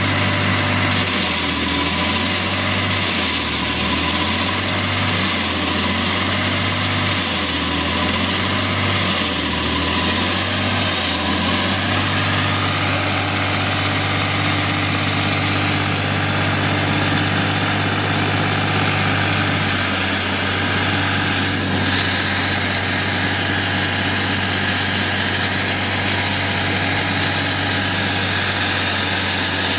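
Diesel engine of a walk-behind concrete saw running steadily, its low hum shifting in steps for the first dozen seconds and then holding even.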